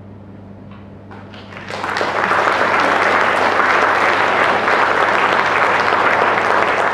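Audience applauding: a couple of scattered claps about a second in, then full, steady applause from about two seconds.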